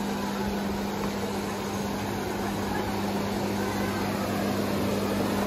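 Busy airport arrivals hall ambience: a steady low hum under a dense wash of crowd noise, with luggage trolleys being pushed through the exit doors.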